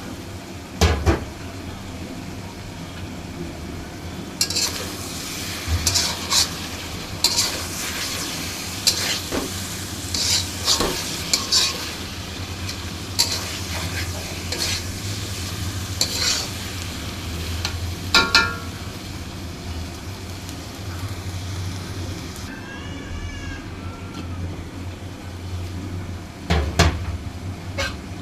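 A spatula stirring and scraping kochur loti (taro stolons) frying in a pan, over a steady sizzle. The scrapes come in irregular bunches, with a couple of sharper knocks against the pan near the start and the end.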